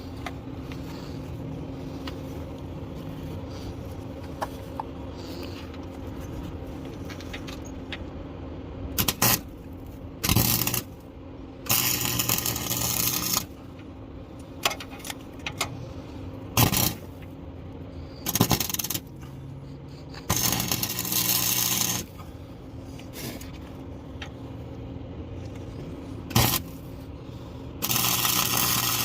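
Welding on a car's exhaust pipe, tacking on an oxygen sensor whose mounting bolts have broken off: a series of short bursts of arc crackle, the longer ones lasting a second or two, with brief blips between them.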